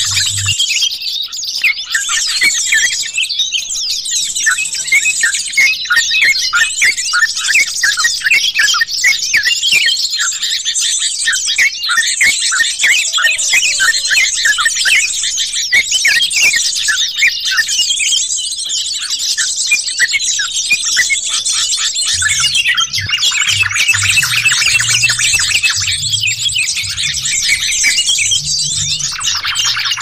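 Dense chorus of bulbuls, trucukan (yellow-vented bulbul) and jogjog, chirping and trilling over one another without pause: a bird-lure call recording. A low pulsing throb joins underneath about two-thirds of the way through.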